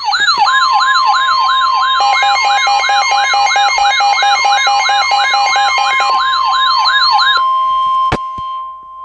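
Electronic emergency-alert alarm: several siren tones layered together, a wailing sweep repeating about twice a second and a fast two-note warble, over a steady single-pitch alert tone. The sweeps stop about seven seconds in, leaving the steady tone alone, with one sharp click shortly after.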